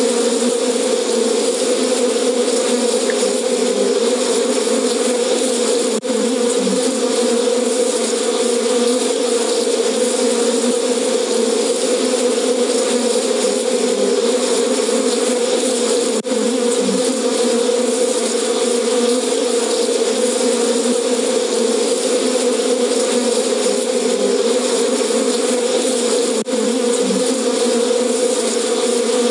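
Recorded buzzing of angry bees, played back by the elephant-alert program once an elephant is detected, as a deterrent that elephants fear. The buzz is loud and steady, with a brief break about every ten seconds.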